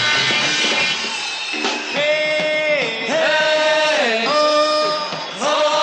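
Live 1960s beat-group music with electric guitars and drums, then from about two seconds in a series of held sung notes, about one a second, each sliding down in pitch at its end.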